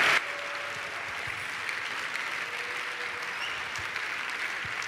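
An audience applauding. The loud clapping cuts off abruptly just after the start, leaving a fainter, steady wash of clapping and crowd noise.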